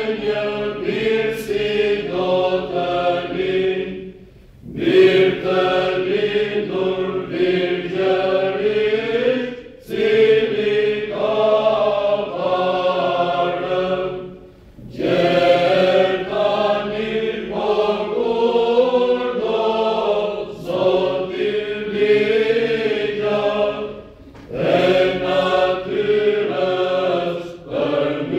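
Mixed choir of men's and women's voices singing Byzantine chant a cappella, in long sung phrases broken by four short pauses.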